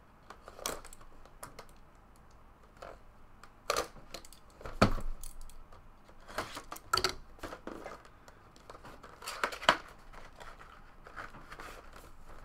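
The wrapping on a cardboard trading-card box is slit with a box cutter and torn off, crinkling. Irregular scrapes and clicks come from the box being handled, with several louder rustling bursts.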